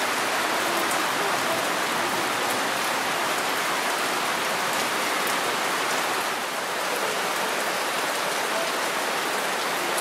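Steady rain falling, an even hiss of many drops that holds at the same level throughout.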